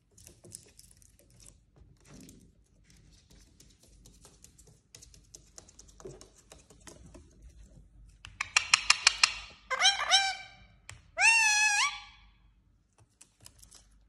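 Indian ringneck parakeet's beak and claws tapping and clicking on a mirror and its metal frame, then a fast rattling chatter and three loud squawking calls from the bird about two-thirds of the way in, the last one the longest.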